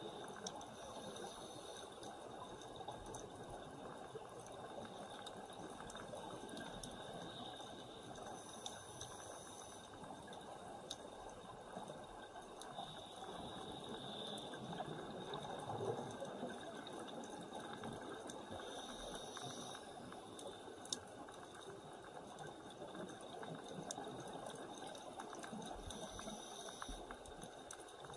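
Faint underwater ambience: a steady crackling hiss with a few sharp clicks, and a scuba regulator's breathing that comes back as a hiss about every five or six seconds.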